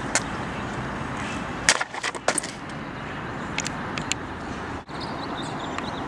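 Steady outdoor background noise with a few sharp clicks and taps, most of them clustered about two seconds in. The sound drops out for an instant near the end.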